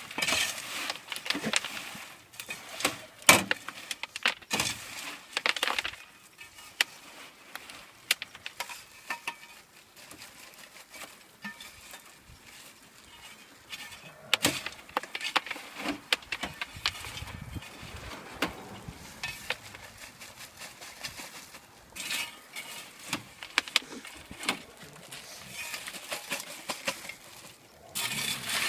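Freshly popped kettle corn being handled in a bin: irregular rustling and scraping with scattered clicks and knocks, busiest in the first few seconds and again near the end.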